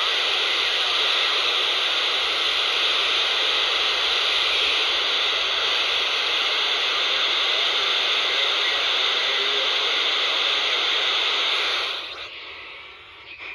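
Steady FM static hiss from a handheld scanner's speaker tuned to 26.995 MHz, with no voice on the channel. Near the end the hiss fades sharply.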